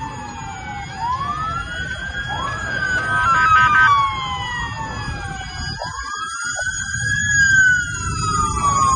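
Several emergency-vehicle sirens wailing at once, their overlapping tones slowly rising and falling, with a short steady blare about three seconds in, over a steady low rumble.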